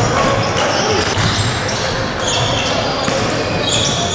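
Basketball game sounds on a wooden gym court: a ball bouncing, sneakers giving short high squeaks, and indistinct players' voices.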